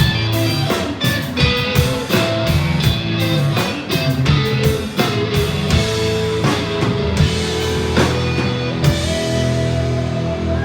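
Live band playing an instrumental passage with guitar and drum kit, the drums hitting quickly; near the end the drum hits thin out and longer held notes ring on.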